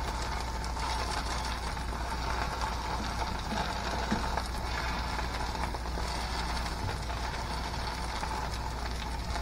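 Shredded purple-potato pancake frying in oil in a frying pan, a steady sizzle over a constant low hum.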